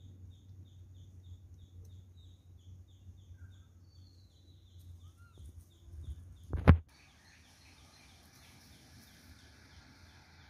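A bird's short high call repeated about three times a second over a low steady rumble of outdoor noise, with one loud thump about six and a half seconds in.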